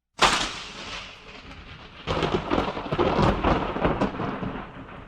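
Fireworks: a sharp bang just after the start that dies away, then from about two seconds in a dense run of crackling pops that fades near the end.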